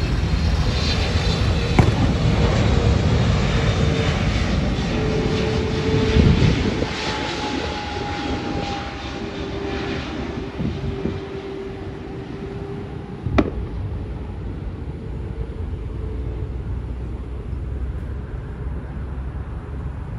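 Boeing 777 twin-jet airliner flying low past on final approach, its engine noise loud at first and fading as it moves away, with a faint engine whine sinking slightly in pitch. A single sharp click comes about two-thirds of the way in.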